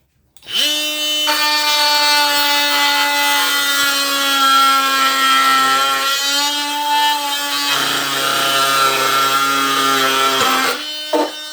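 Ryobi HP brushless oscillating multi-tool at its highest speed, six, cutting through a small piece of wood. It starts about half a second in, runs as a steady buzzing whine for about ten seconds and stops just before the end, with a slight sag in pitch and a lower hum joining toward the end as the blade works the wood.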